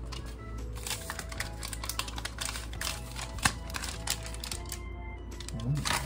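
Thin plastic protective wrap peeled off and crumpled from new Apple AirPods Max headphones: a run of irregular crinkles and crackles, with one sharp click about three and a half seconds in, over background music.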